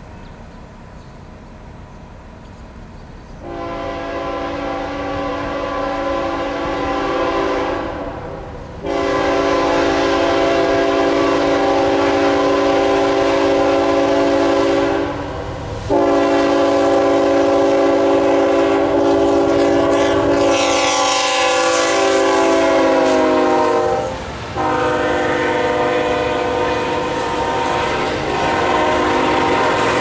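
Multi-chime air horn of a Norfolk Southern GE ET44AC locomotive leading a freight train, sounded as a horn show: four long blasts beginning a few seconds in, the chord dropping in pitch as the locomotive comes past. The train's wheel and engine noise rises under the horn near the end.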